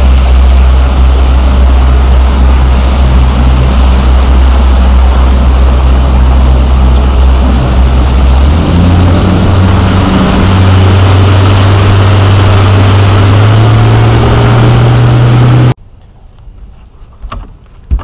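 Bass boat's outboard motor running with the boat under way, its drone mixed with a loud rushing noise. A little past halfway the engine's pitch steps up, then up again twice, as it revs higher. It cuts off suddenly near the end.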